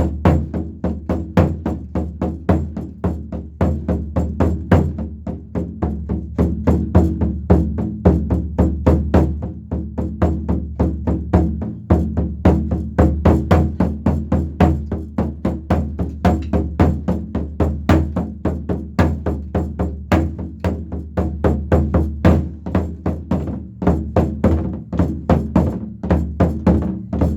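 A Korean drum (buk) played in a fast, steady run of strokes imitating galloping horse hoofbeats, with deep thumps on the drumhead and sharp, clicky strokes in between.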